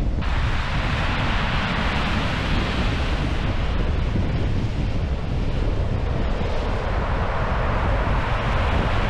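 Sea waves breaking against rocks and washing over a shingle beach, a rushing surge that swells twice, with wind buffeting the microphone as a constant low rumble.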